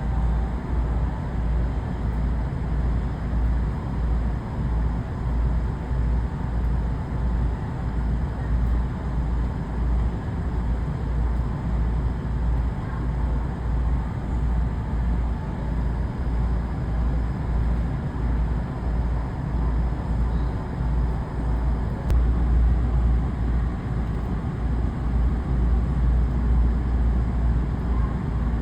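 Steady low rumble of railway platform ambience, heaviest in the deep bass and unchanging throughout.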